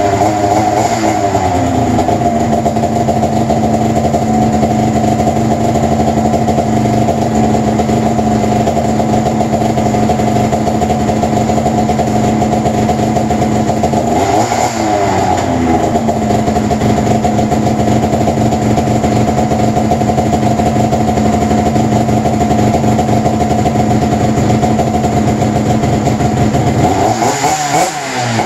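2002 Arctic Cat ZR 800 two-stroke twin snowmobile engine running steadily on its first start after a full rebuild, the throttle blipped briefly three times: about a second in, halfway through and near the end, each time the revs rising and falling back.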